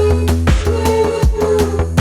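Background electronic music with a steady, driving beat and bass line.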